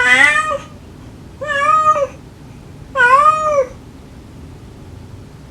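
Cat meowing loudly, three clear meows about a second and a half apart, each rising and then falling in pitch, with a fourth starting at the very end.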